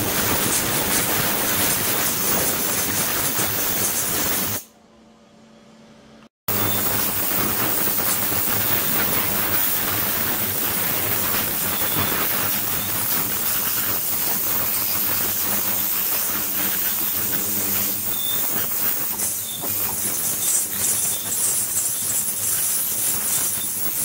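Ultrasonic cleaning tank running: a steady hiss from the vibrating, agitated water with a faint low hum underneath. The hiss drops away for about two seconds, about four and a half seconds in, then comes back.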